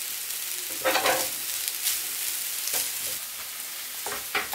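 Rice frying on the plate of a Severin KG 2397 electric teppanyaki grill, with a steady high sizzle. Wooden and metal spatulas scrape and clatter against the plate as the rice is turned, about a second in, again near three seconds and near the end.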